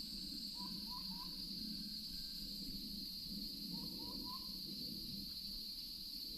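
Outdoor nature ambience: a steady high-pitched insect drone, with an animal call of three short rising whistled notes heard twice, about half a second in and again about four seconds in.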